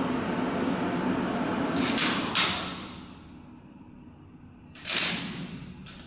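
Vintage elevator running with a steady mechanical noise inside the car, then stopping about two and a half seconds in with a pair of sharp clunks; a louder clunk follows near the end.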